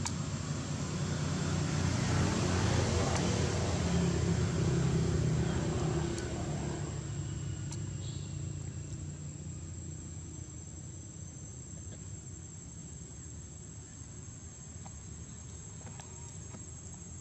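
A motor vehicle passes: a low engine rumble swells over the first couple of seconds and fades away after about six seconds. A steady high-pitched insect drone runs underneath.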